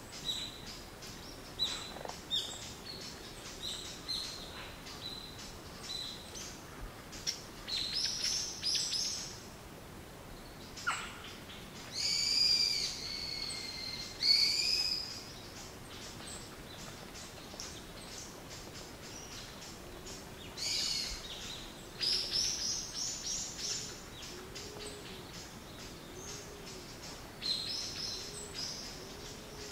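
Birdsong: repeated high chirps and trills, with a run of low hoots about once a second in the second half.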